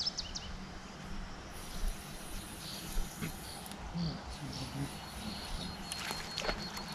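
Outdoor lakeside ambience: a thin, high insect buzz that starts about one and a half seconds in and comes and goes, with a few short bird chirps and faint low voices.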